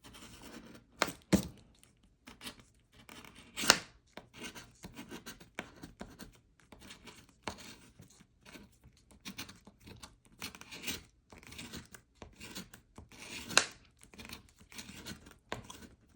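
Scratching the coating off a scratch-off lottery ticket: a steady run of short, irregular scrapes, with a few sharper, louder strokes.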